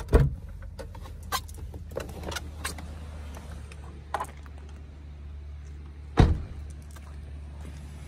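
A car door clunks right at the start, then come a few light clicks and knocks, and another heavy thump about six seconds in, over a steady low rumble.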